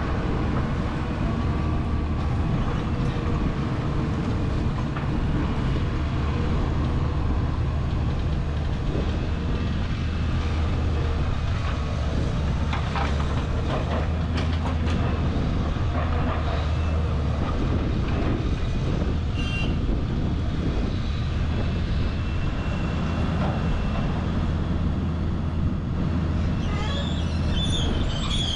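Caterpillar 320C excavator's diesel engine running steadily under load while it works, with scattered clanks and clatter of metal and debris, a cluster of them about halfway through and again near the end.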